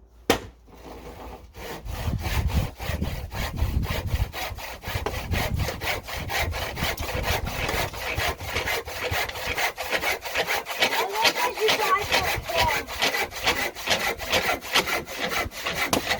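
Handsaw cutting through a wooden board, with quick, even back-and-forth strokes that start about a second and a half in and keep a steady rhythm.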